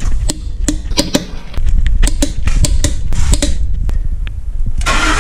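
Background music with a beat of sharp percussive hits over a deep bass. Right at the end a louder steady noise comes in.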